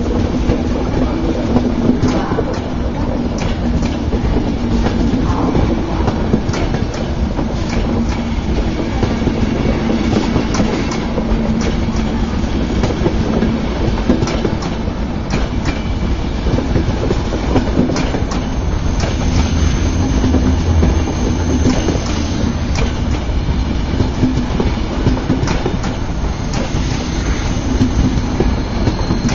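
Passenger night-train coaches rolling past, a steady rail rumble with wheels clicking over the rail joints.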